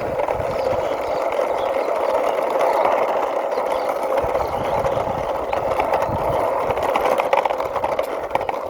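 Toy truck pushed along by hand, its wheels rolling with a steady whirring noise.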